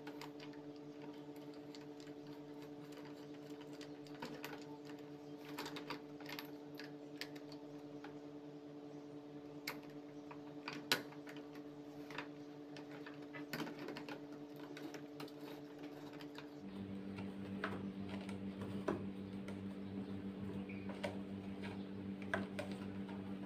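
Scattered light clicks and taps of metal parts being handled and fitted into an office chair's tilt mechanism, over a steady background hum that shifts in tone about 17 seconds in.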